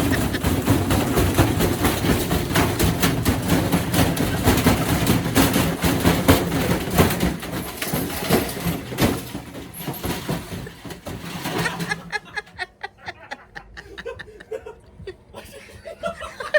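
Washing machine drum spinning hard with bricks inside, a loud rattling clatter of repeated knocks and bangs that cuts off suddenly about twelve seconds in, leaving scattered clicks.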